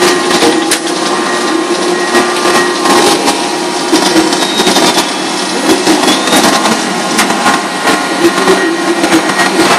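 Industrial paper-trimming machinery running loudly and steadily, with frequent sharp clicks and knocks over a constant hum.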